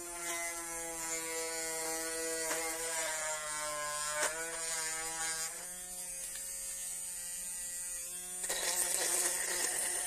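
Small DC motor of a homemade cordless drill running with a steady whine, its pitch dipping briefly about four seconds in as it is loaded. Near the end the whine turns rougher and noisier as the bit grinds into the plastic case of a power bank.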